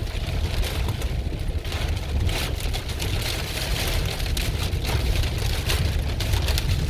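Heard from inside a truck's cab in a derecho windstorm: a heavy, fluctuating low rumble of the truck and the storm wind buffeting it, with scattered sharp rain hits on the body and glass.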